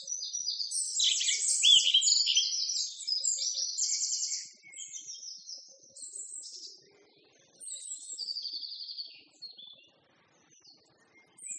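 Small songbirds singing: a dense run of fast, high trills and chirps for the first few seconds, then thinner, scattered calls with short pauses between them.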